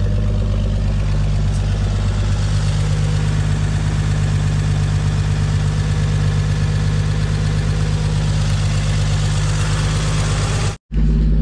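1957 Chevrolet pickup's engine idling steadily while warming up, before the thermostat has opened. The sound drops out for an instant near the end.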